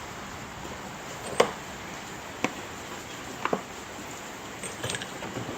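Heavy rain falling as a steady hiss, with about five sharp clicks or knocks spread through it.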